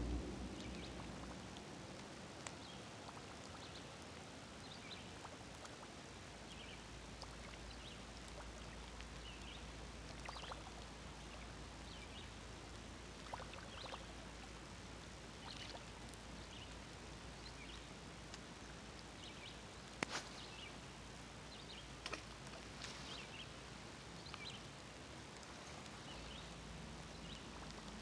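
Creek water running steadily, with scattered faint high chirps and ticks over it and one sharper click about twenty seconds in.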